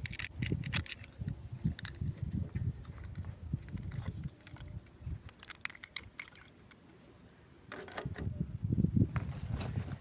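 Hands handling small plastic toy pieces and packaging during an unboxing: scattered light clicks, taps and rustling. The handling dies down for a moment about six seconds in and picks up again near the end.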